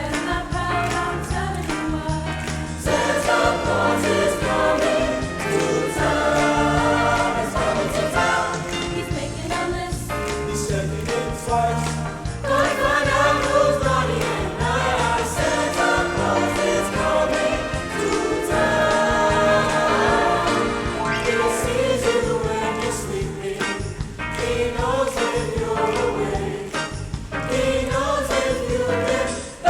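High school choir singing a Christmas song over musical accompaniment.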